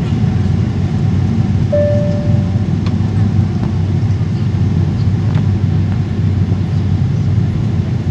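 Steady low rumble of a jet airliner's cabin during the landing approach, engine and airflow noise heard from inside. A brief single tone sounds about two seconds in.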